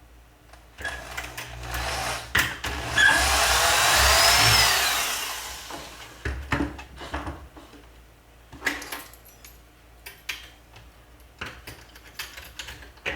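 Power drill running for several seconds, its pitch rising and falling, as it bores a hole through the carrier's plastic wall. After that come scattered clicks and knocks of handling.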